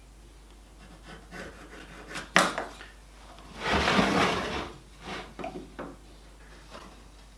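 Pieces of wood being handled on a workbench: a few light knocks and one sharp clack, then a scrape of about a second as wood slides against wood, then a few more light taps.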